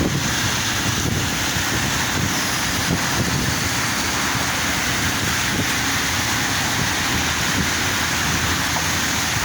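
Heavy rain pouring down steadily, a constant hiss with a low rumble underneath.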